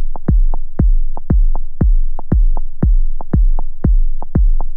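Electronic background music made almost entirely of a deep drum-machine kick beat, a syncopated pattern of about four kicks a second that repeats each second.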